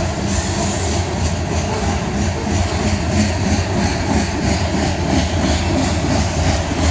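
Covered hopper cars of a long freight train rolling past at close range: a steady rumble of steel wheels on the rail with an even, repeating clatter.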